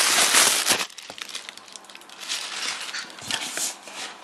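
Plastic packaging crinkling and rustling as it is handled, loud and dense for about the first second, then lighter scattered crackles.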